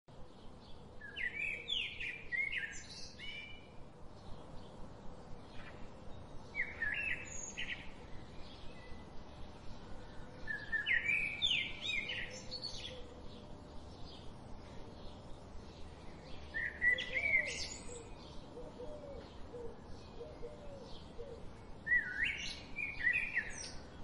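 European robin singing: five high, warbling phrases of one to two seconds each, separated by pauses of a few seconds, over a faint run of quick ticks.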